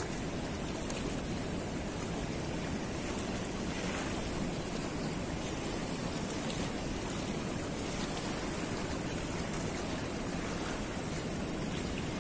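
Steady rush of fast, turbulent river water churning below a weir's gates.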